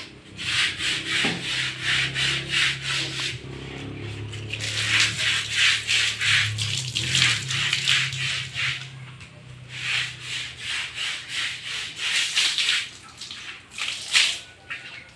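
Brush scrubbing a wet, soapy concrete floor in quick back-and-forth strokes, about three or four a second, in runs of a few seconds with short pauses between.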